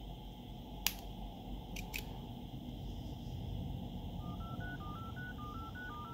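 Oppo Reno 3 smartphone dialer keypad beeping a quick run of touch-tone (DTMF) notes, about a dozen keys pressed in turn at roughly five a second, starting about four seconds in; each beep is a touch registered by the newly fitted screen. Before that, a sharp click about a second in and two more near two seconds.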